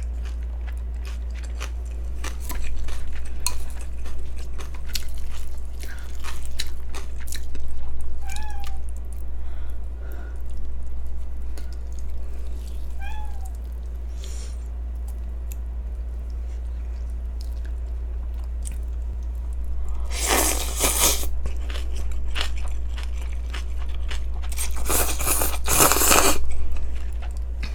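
Wet chewing with scattered clicks, then two long slurps of cold buckwheat noodles (yeolmu naengmyeon) in the last third. A cat meows briefly twice in the middle. A steady low hum runs underneath.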